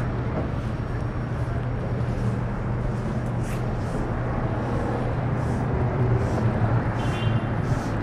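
Night city street ambience heard while walking: a steady traffic rumble and hiss, with soft footsteps at a walking pace. A short high tone sounds about seven seconds in.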